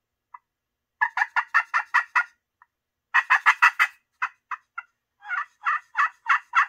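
Quaker Boy Magic Touch slate turkey call played with its acrylic striker, sounding runs of yelps: a run of about seven notes, a faster run of about six, three separate short notes, then a slower run. The slate and striker have not yet been roughened with Scotch-Brite, and the call sounds okay.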